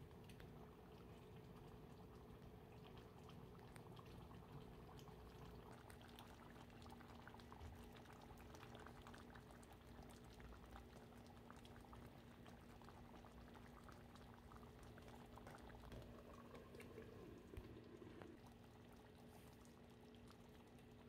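Chicken stew in a thick tomato sauce simmering in a pot on the stove: faint bubbling and crackling, over a steady low hum.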